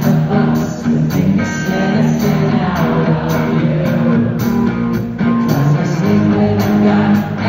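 Rock band playing live, with electric guitars and bass out front over a steady drum beat, loud and full as heard from within the crowd.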